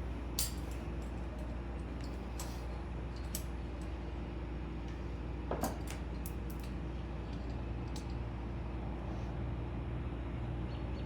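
Scattered metallic clicks and clinks of Knipex pliers working an AN line fitting, about half a dozen over a steady background hum, with a short squeak about halfway through.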